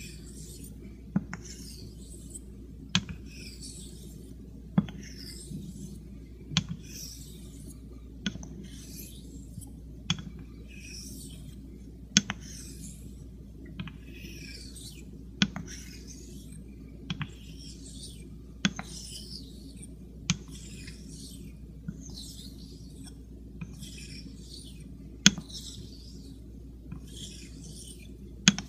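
Near-wedge Greaves straight razor honed on a wet Shapton Pro synthetic waterstone to set a new bevel. Each stroke makes a short rasping hiss, and a sharp click every one and a half to two seconds marks the spine landing on the stone as the blade is flipped.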